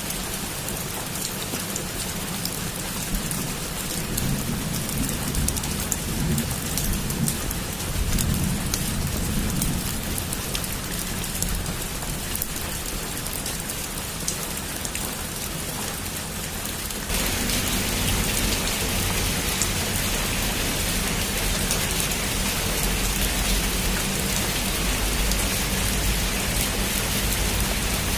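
Heavy rain falling steadily on a roof, with low rumbles of thunder in the first half. About 17 s in, the rain suddenly gets louder and hissier, and it stays that way.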